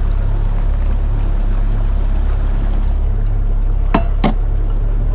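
Steady low rumble and water noise aboard a small fibreglass bay boat at sea, with two sharp knocks about four seconds in, a quarter second apart.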